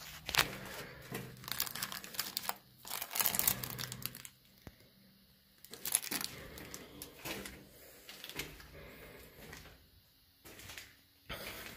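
Irregular crinkling and crunching noises in bursts of clicks, loudest about one to four seconds in, with a short echo of a small concrete room.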